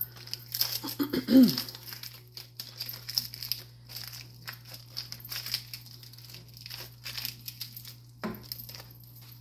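Thin plastic wrapper of a mozzarella string cheese stick crinkling and tearing as it is peeled open by hand, in a run of irregular crackles. A short vocal sound comes about a second in.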